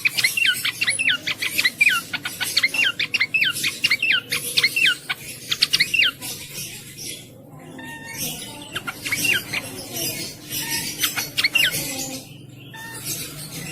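Cingcoang (jongkangan) songbird singing a fast, chattering song of sharp down-slurred whistled notes, several a second. A long run breaks off about six seconds in and picks up again briefly after a pause of a couple of seconds.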